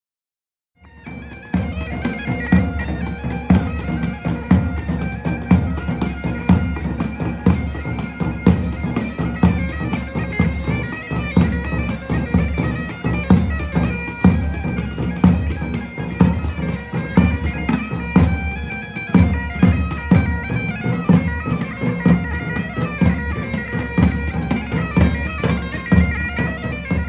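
Bagpipes playing a tune over a steady drone, with regular drum beats; it starts about a second in after a short silence.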